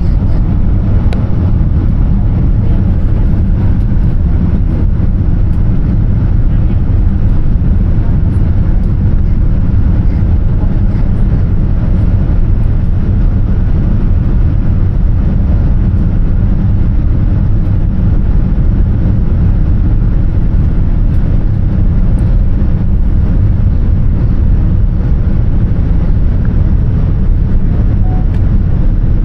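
Steady low rumble inside the cabin of a Boeing 787-10 Dreamliner: engine and airflow noise, even throughout with no change in pitch or level.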